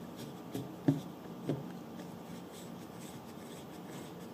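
Small screwdriver working a screw on a metal model engine: three light knocks in the first second and a half, the loudest about a second in, then faint scratching and ticking as the screw is turned.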